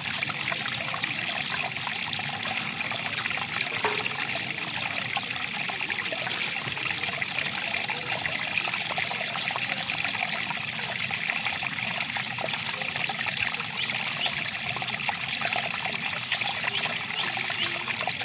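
Water flowing and trickling over stones in a stream, a steady splashing babble.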